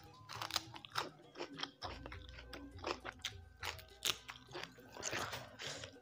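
A person chewing crunchy food close to the microphone, with irregular, sharp, crackling crunches a few times a second.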